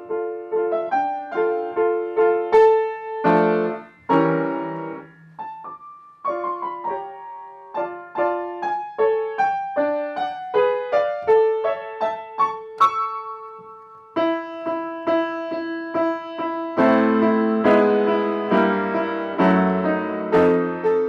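Solo piano playing a slow melody of single notes, turning to fuller chords with a lower bass line about three-quarters of the way through.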